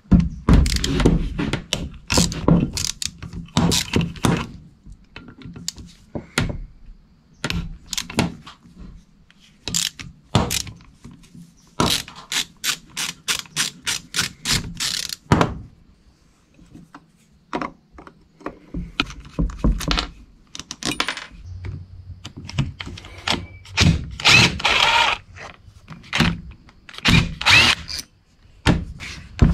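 Metal tools knocking, clinking and scraping on a locked-up boat starter motor as it is taken apart: a string of separate sharp knocks, with a run of evenly spaced knocks about halfway through and a short stretch of denser scraping near the end.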